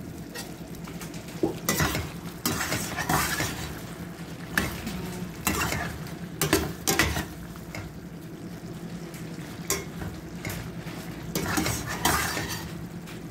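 Metal spoon stirring penne through a thick cream sauce in a stainless steel pan, scraping and clinking irregularly against the pan, over the sauce's low sizzle as it simmers.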